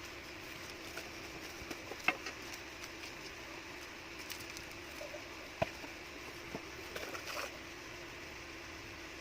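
Scattered light clicks and taps of things being handled, with two sharper knocks about two and five and a half seconds in and a short flurry of clicks near the end, over a steady low hum.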